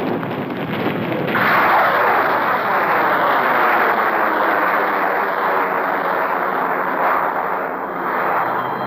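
Battle noise for the first second or so, then from about a second and a half in the engine noise of a diving warplane, loud and steady, its pitch slowly falling as it passes.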